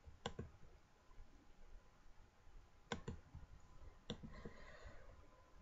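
Near silence with a few faint, sharp clicks: one just after the start, a quick pair about three seconds in, and another a second later.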